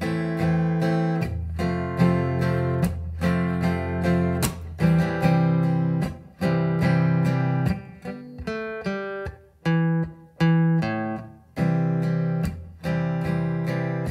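Martin 00-17 acoustic guitar strummed slowly through a chord progression of A minor, F and C over G, then a short picked single-note riff a little past halfway that lands on a strummed C chord.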